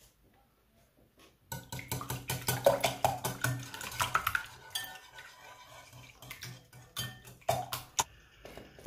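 Wire whisk beating raw eggs in a ceramic bowl: a quick, dense clatter of the wires against the bowl starts about a second and a half in. It eases off, and a few separate taps come near the end.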